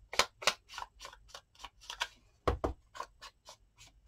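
A quick, uneven series of small sharp clicks and taps, several a second, as paper scraps are handled and worked at an ink pad on a craft table, with two dull thumps about two and a half seconds in.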